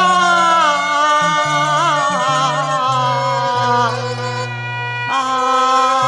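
Cantonese opera accompaniment band playing an instrumental interlude between sung lines: a wavering, vibrato-laden melody over steady bass notes, with a new phrase coming in about five seconds in.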